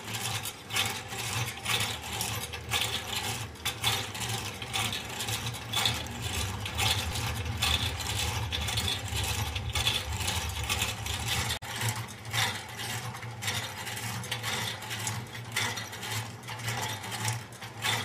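Hand-cranked wooden automaton running: its wooden cams and followers click and knock many times a second as the crank turns, over a steady low hum.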